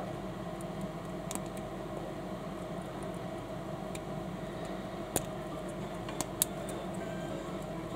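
Small LEGO-compatible plastic building bricks being handled and pressed together, giving a few sharp plastic clicks, the loudest about five seconds in and two more about a second later. A steady hum runs underneath.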